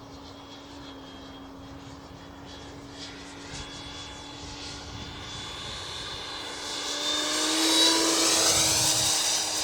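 Electric ducted fan of an HSD SuperViper RC jet whining in flight, growing much louder from about seven seconds in as the jet comes past close.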